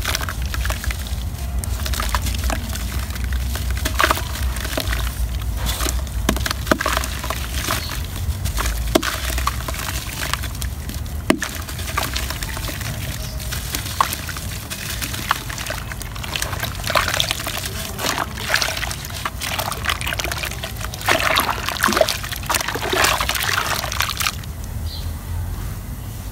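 Hands crumbling chunks of dry red dirt into a basin of muddy water: soft crackling and crumbling mixed with sloshing and splashing. It is busiest a few seconds before the end, then dies down.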